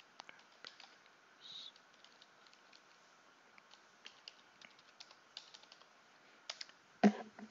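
Computer keyboard typing: faint, scattered key clicks as a user name and password are entered, with a louder knock about seven seconds in.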